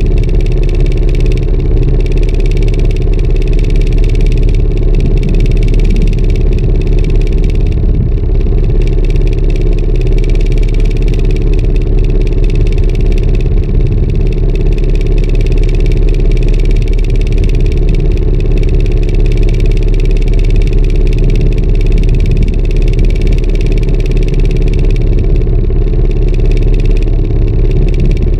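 A wooden fishing boat's engine running steadily at an even speed, a constant low hum with no change in pace.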